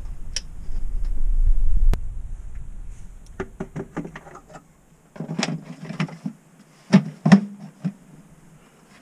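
A torque wrench is pulled on an intake manifold bolt, with a low rumble of strain and a sharp click about two seconds in as it reaches its set torque of 31 foot-pounds. After that, plastic engine-bay parts rattle as they are handled and set in place, with two loud knocks about seven seconds in.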